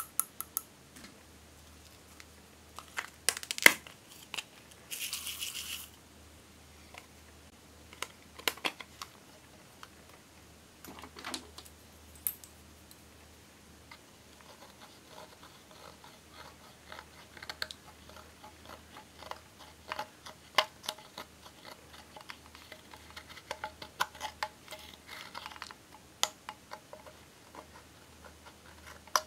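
A metal spatula scraping and crushing pressed eyeshadow in a plastic palette: a dense run of small scratchy ticks and crunches that starts about halfway through. Before it come a few sharp clicks and a brief hiss of small glitter vials being handled.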